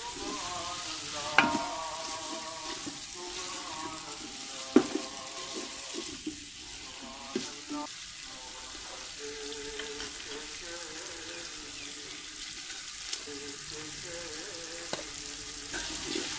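Chopped tomatoes, onions and green chillies sizzling in oil in an aluminium pot while a wooden spatula stirs them. There are two sharp knocks of the spatula against the pot, about one and a half seconds in and again near five seconds.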